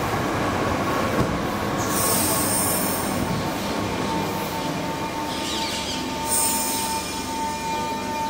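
Southeastern electric multiple unit running into the platform and slowing, its wheels rumbling steadily on the rails. Two short high-pitched squeals come about two and six seconds in, and a steady whine grows stronger as the train comes almost to a stand.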